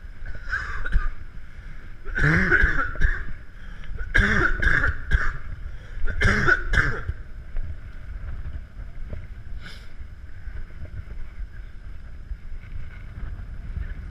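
A person coughing in a few harsh bursts about two seconds apart, over steady wind noise buffeting the microphone.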